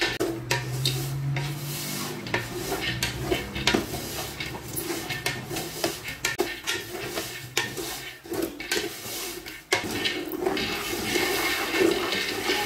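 A spoon scraping and knocking around a large aluminium pot as groundnuts are stirred through hot garri to dry-fry them, the nuts and grains rasping against the metal. The scraping is full of short clicks and turns into a denser, steadier rush about ten seconds in.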